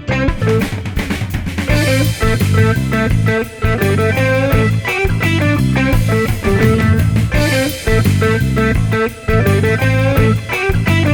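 Background music: a guitar-led rock or blues track with a drum kit.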